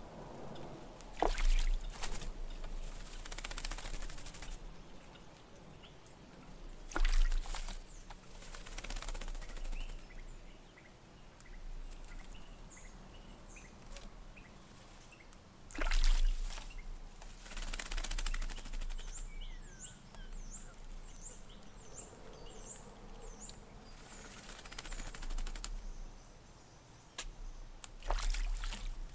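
Tūī bathing in a shallow water bowl: four bursts of splashing as it dips and shakes its wings in the water. Between the splashes, a run of short, high chirping bird calls.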